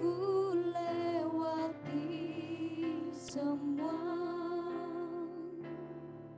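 Two young women singing a slow worship song into microphones over sustained backing chords. The lead voice holds notes with a light vibrato.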